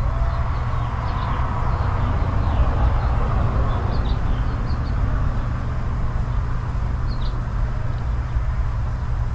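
Wind buffeting the microphone in a steady low rumble, with a few short high bird chirps about four seconds in and again near seven seconds.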